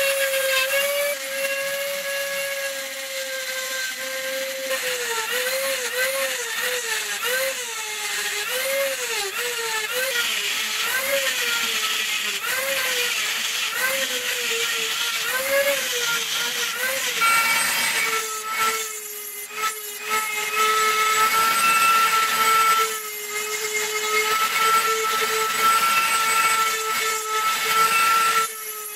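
Dremel rotary tool whining at high speed as a diamond burr grinds wet stone. Through the middle its pitch wobbles up and down about once a second as the bit bears on the stone, then it runs lower and steadier, dipping out briefly twice.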